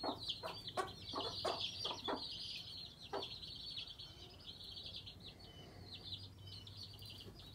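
Chicks peeping, a constant stream of rapid high chirps, with a silkie hen giving a run of short clucks during the first three seconds.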